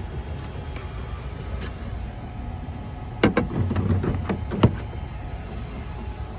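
Tesla Supercharger connector being pushed into the car's charge port: a few sharp clicks and knocks about halfway through and one more loud click a second or so later as the plug seats. Under it runs a steady low rumble.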